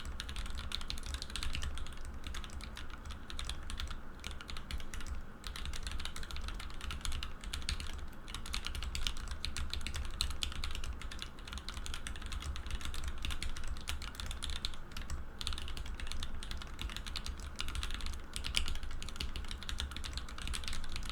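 Fast, continuous typing on an Alice-layout mechanical keyboard with lubed H1 switches, an acrylic plate and GMK Oblivion keycaps: a dense stream of key clacks with a few brief pauses.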